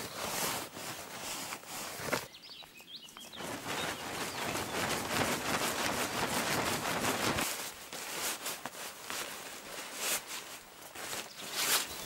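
Rustling and handling of nylon camping gear as a backpack is packed and a tarp is handled, with scattered clicks and scuffs, and a brief quieter break about two seconds in.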